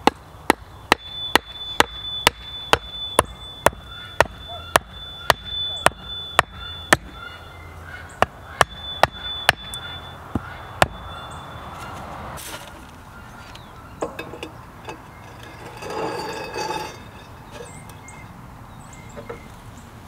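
A hatchet striking the top of a wooden stake, driving it into the ground: about twenty sharp knocks, roughly two a second with a short pause partway through, the last coming about eleven seconds in. Some rustling follows near the end.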